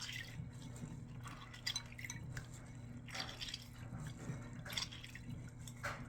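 Hands swishing and rubbing dry navy beans in a bowl of water, with irregular small splashes and drips. A steady low hum runs underneath.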